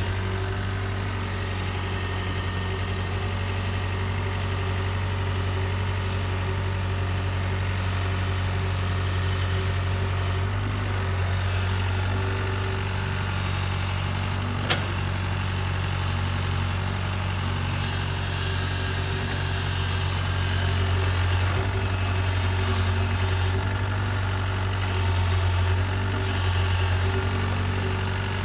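Mini excavator's diesel engine running steadily while the machine swings and works its arm, a little louder in the last third. A single sharp knock comes about halfway through.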